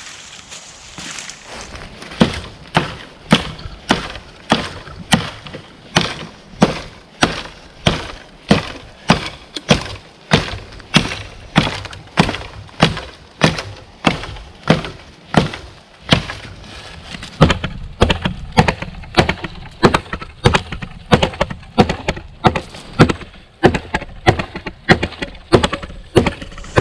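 Wood being chopped: a long, regular run of sharp blows, about two a second, that begins about two seconds in.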